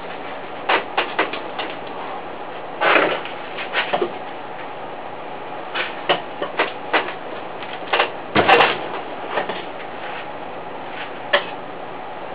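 Irregular knocks, taps and scrapes as a wooden stick and the center core are worked against the rim of a steel propane-tank foundry shell. The knocks are loudest about three seconds in and again a little past eight seconds.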